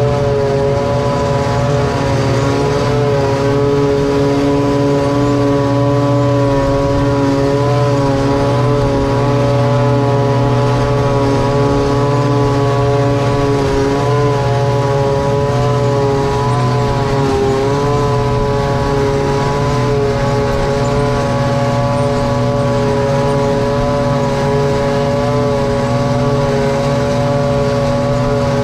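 Massey Ferguson 8732 tractor pulling a Dion 2430 forage harvester chopping hay: a steady engine drone with a pitched machine whine over it, wavering slightly in pitch now and then.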